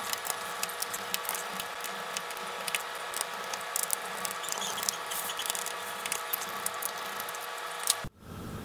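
Small hand screwdriver turning out the motherboard screws of a Lenovo ThinkPad T470: a run of light, irregular clicks and ticks over a steady hum, cutting off abruptly near the end.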